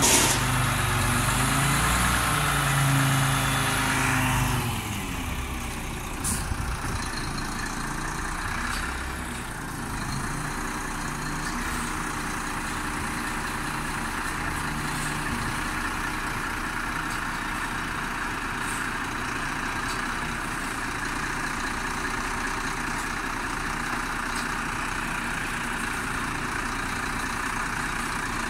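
Front-loading garbage truck's diesel engine revved, its pitch rising and falling for about four seconds while it drives the hydraulic lift arms, then dropping to a steady idle. A single light click about six seconds in.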